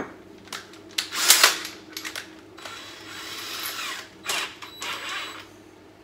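A 25 mm hole saw and its arbor being swapped into a cordless drill: clicks and clatter of the metal parts being handled and fitted, with a short steady whir of the drill about three seconds in.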